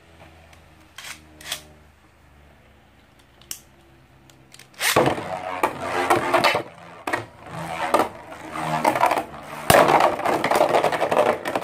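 Infinity Nado spinning top whirring on a clear plastic arena floor with a faint steady hum and a few light clicks. About five seconds in a second top is launched into the arena and the two spin against each other, a loud run of scraping and sharp clacks as they clash and skid, with one especially sharp clack near the end.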